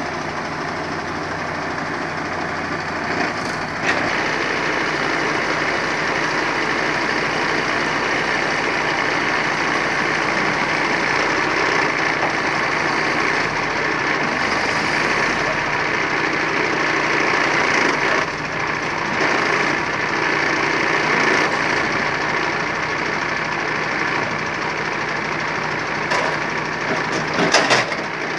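MAN TGA 480 timber truck's diesel engine running steadily while its hydraulic loader crane works, lifting a large log. The engine gets louder about four seconds in as the crane takes the load, and there are a few knocks near the end.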